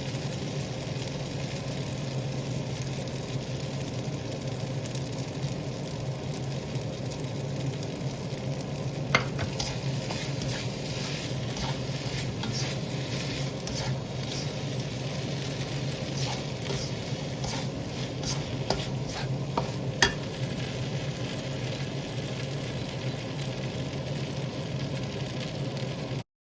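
Fried rice sizzling in an oiled pan, with a spatula stirring it and now and then clicking against the pan; two sharper knocks stand out, about nine and twenty seconds in.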